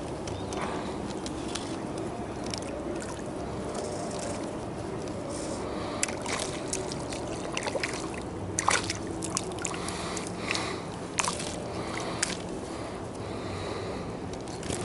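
A small hooked fish splashing and thrashing at the water's surface while it is played on a fly rod. The splashes come in irregular bursts from about six seconds in until about twelve, over a steady low background noise.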